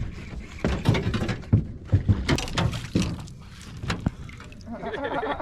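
A run of sharp knocks and thumps in a fishing boat as a bass is landed, easing off about three seconds in. A voice follows near the end.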